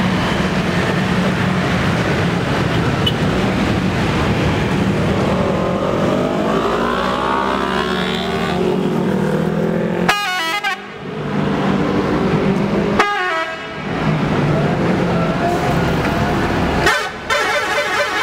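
Scania K410 coach's 13-litre six-cylinder diesel running as the bus pulls away, its revs rising a few seconds in. Three short multi-tone 'telolet' horn blasts sound over it, about 10, 13 and 17 seconds in.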